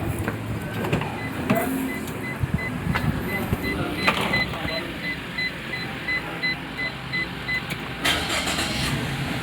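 Electronic beeper in a Perodua Alza beeping steadily, about three short beeps a second for some six seconds, then stopping; a short burst of noise follows near the end.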